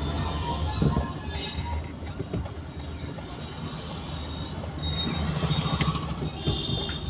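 Steady low engine and road hum heard from inside a car's cabin as it drives slowly through town traffic.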